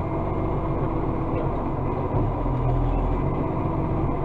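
Engine and hydraulics of an Iveco Acco side-loading garbage truck running steadily while the joystick-worked bin lifter picks up a bin, heard inside the cab: a low drone with a steady hum above it.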